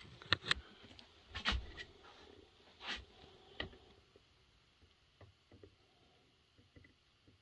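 Handling noise: a scatter of light knocks and clicks, most of them in the first four seconds, then a few faint ticks.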